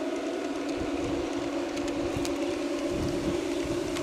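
Large-scale model freight cars rolling past on garden railway track with a few faint clicks over the rail joints, under a steady engine-like drone. Wind buffets the microphone in low rumbles, stronger near the end.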